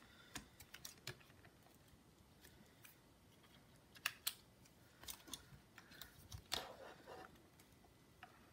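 Faint, scattered small clicks and light taps from a laptop motherboard and its parts being handled and seated inside a MacBook Air's case, with the loudest pair of clicks about four seconds in.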